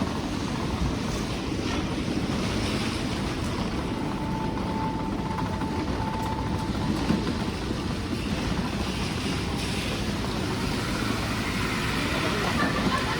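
Steady rumbling city street noise of traffic and rain, with a faint steady tone sounding for a few seconds near the middle.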